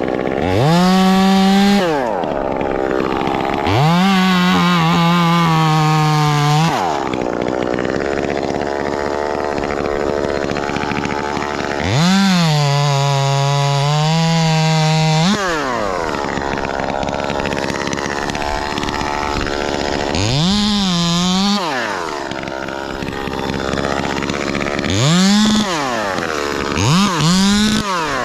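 Ported Echo 2511T top-handle two-stroke chainsaw revving up to full throttle and dropping back to idle about six times. Three of the runs are held for two to three seconds and the rest are short blips.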